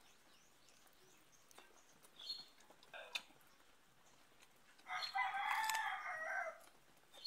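A rooster crowing once, about a second and a half long, dropping in pitch at the end. It is preceded by two short faint sounds.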